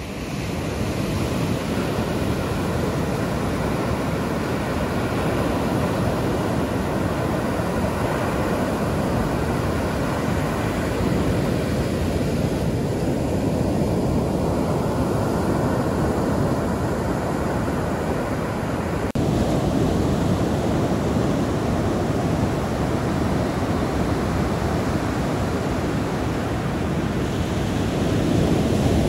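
Ocean surf breaking and washing up the beach in a steady rush, with a brief break about two-thirds of the way in.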